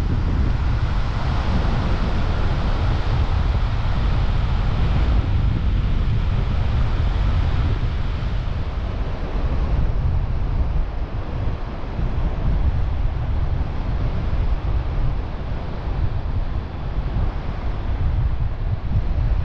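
Strong wind buffeting the microphone, a continuous heavy low rumble that flutters with the gusts.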